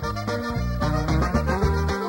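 Recorded Mexican regional band music: an instrumental passage without singing, with a rhythmic bass line under the melody instruments.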